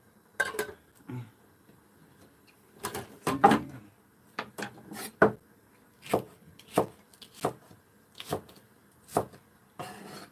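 Chef's knife chopping green onion on a wooden cutting board: single knocks a little under a second apart through the second half, after a louder cluster of knocks about three seconds in. Near the start, a metal pot lid is set down on a steel pot.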